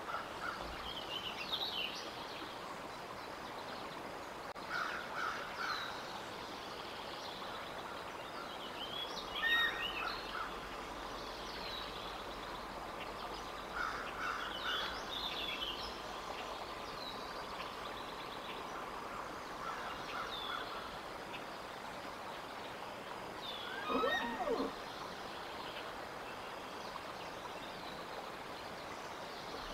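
Wild songbirds chirping and singing on and off over a steady outdoor hiss, with one louder, lower sound whose pitch bends, about 24 seconds in.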